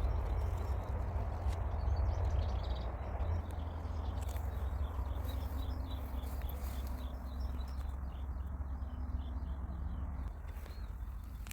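Small birds chirping faintly in a garden, over a steady low rumble that is the loudest sound.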